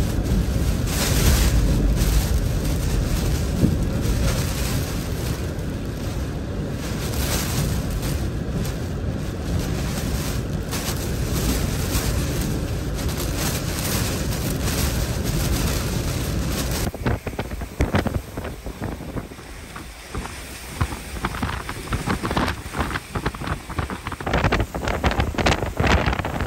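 Hurricane-force wind with driving rain buffeting the microphone: a dense, steady rush with heavy low rumble, gusting above 82 mph. About 17 seconds in it changes to a choppier, gustier buffeting with sharp surges and brief lulls.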